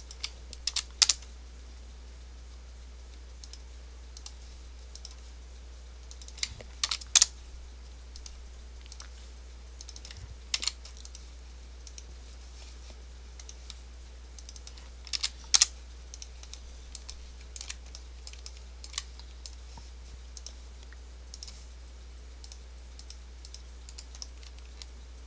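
Scattered clicks of a computer keyboard and mouse. Short quick runs of keystrokes stand out about a second in, at around seven seconds and at around fifteen seconds, over a steady low hum.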